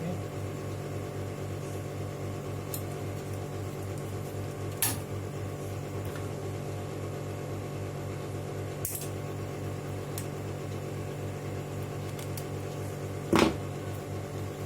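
A steady low electrical hum with a fast, even pulsing runs throughout, with a light click about five seconds in and a louder short knock near the end.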